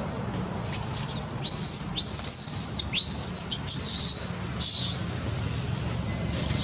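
A run of short, high-pitched squeaking calls from an animal, a dozen or so in quick succession, some sweeping quickly upward. The calls stop about five seconds in, over a steady low hum.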